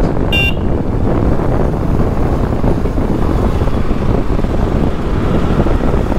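Steady wind buffeting the microphone of a moving motorcycle, over a low road and engine rumble. A short high-pitched beep sounds about half a second in.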